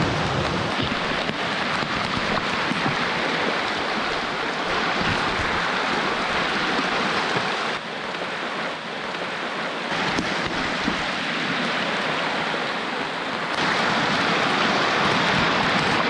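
Heavy rain on a shallow river with flowing water, a steady rushing hiss. It eases for a couple of seconds about eight seconds in and grows louder near the end.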